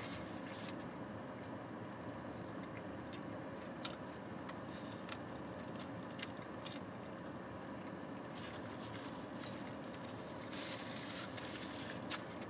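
A person eating a chicken sandwich: quiet chewing with a few small clicks and rustles, over a steady hum inside a car.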